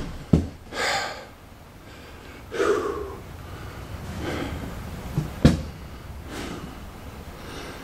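A man breathing hard after climbing stairs, a loud breath every second and a half or so. A sharp knock comes a little past halfway.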